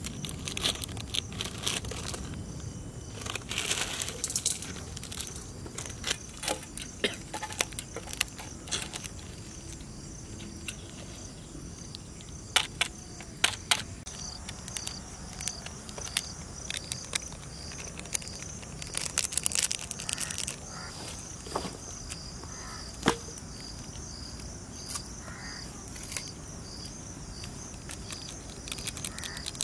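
Scissors snipping open small plastic Maggi masala seasoning sachets, with crinkling of the wrappers and scattered sharp clicks. Insects chirp in an even, fast pulse through the second half.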